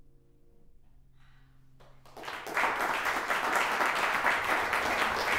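The last notes of a grand piano fade out, then an audience breaks into applause about two seconds in and keeps clapping steadily.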